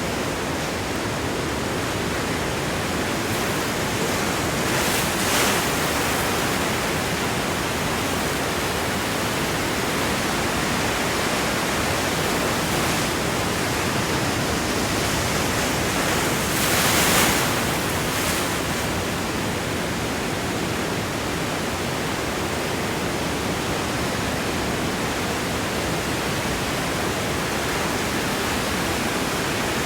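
Ocean waves washing against rocks: a steady rushing wash of surf, with two brief louder surges, one about five seconds in and one near the middle.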